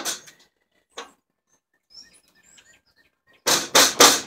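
Flathead screwdriver prying at an angle grinder's housing: a couple of single clicks, then three loud scraping clacks in quick succession near the end.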